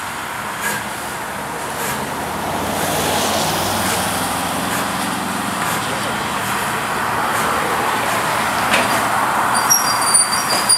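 BR Standard Class 5 4-6-0 steam locomotive No. 73129 drifting slowly into a platform with a steady hiss of steam. Near the end a high, on-and-off squeal starts from the wheels and brakes as it slows.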